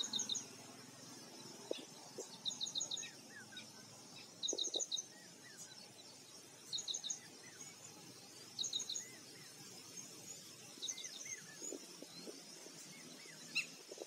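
Red-wattled lapwing calling: short bursts of three or four sharp, high notes, repeated about every two seconds. Fainter chirps of other birds run underneath.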